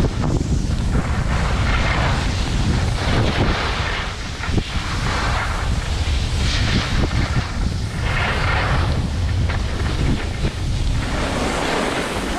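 Constant low wind rumble on an action camera's microphone while skiing downhill, with the hiss of skis scraping across the snow swelling and fading with each turn every second or two.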